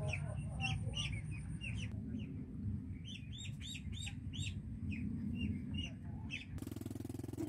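Small birds chirping, several quick calls a second, over a steady low rumble. Near the end the rumble gives way to a steady hum.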